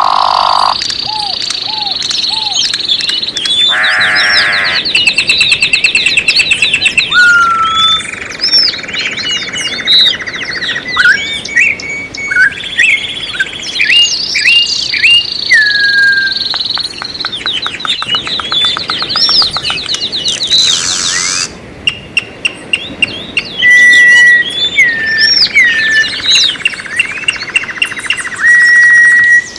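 Several songbirds singing at once: whistled notes, rapid trills and quick chirps overlap, with a couple of harsher, raspy calls.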